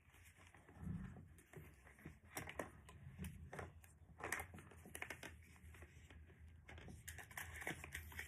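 Faint, irregular clicks and rattles of plastic Hot Wheels track pieces and connectors being handled and fitted together.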